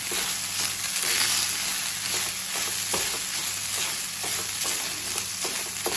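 Garlic fried rice sizzling in an oiled nonstick frying pan while it is stirred and tossed with a spatula: a steady sizzle with frequent short scrapes and taps of the spatula against the pan.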